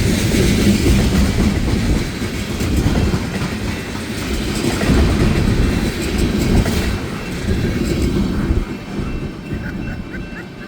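Freight cars of a mixed manifest train rolling past, wheels clattering over rail joints with a steady rumble. The sound eases off over the last two seconds or so.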